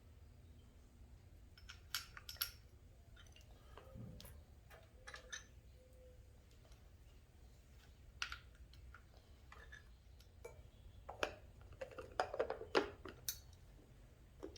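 Faint, scattered clicks and taps of small parts being handled by hand, thickening into a quick cluster a few seconds before the end, over a low steady hum.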